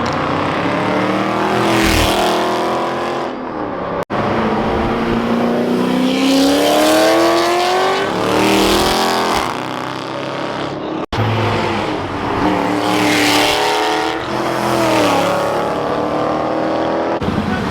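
Car engines accelerating hard, the revs climbing and dropping again and again. Three separate passes are joined by abrupt cuts.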